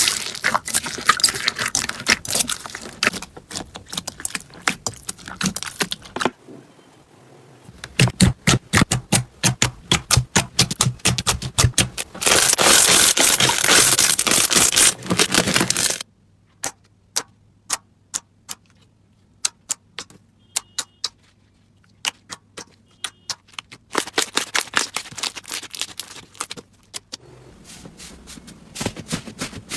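Crunchy slime being pressed and squeezed, giving off dense runs of crackling, popping clicks. Partway through come several seconds of separate sharp pops over a faint low hum, and then the dense crackling returns.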